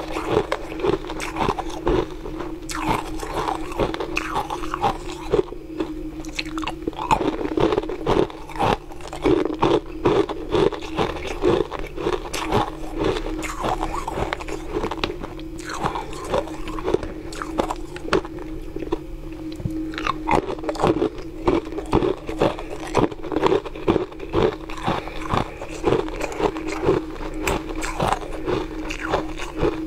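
Ice cubes being bitten and chewed close to the mouth: a dense, irregular run of sharp cracks and crunches over a steady low hum.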